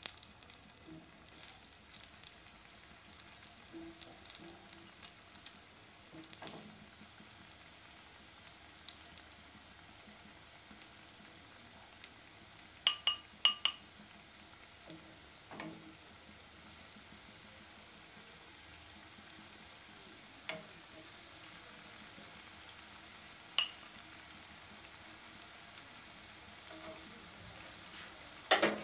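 Besan-battered potato bites frying in hot oil in a steel pan, with a steady light sizzle. Scattered sharp clicks and taps come through it, a cluster of them about 13 seconds in and another at the very end.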